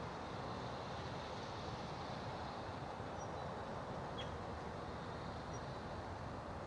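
Distant Bulleid 'West Country' Pacific three-cylinder steam locomotive working as it approaches, a steady rumble without distinct exhaust beats. A bird chirps briefly about four seconds in.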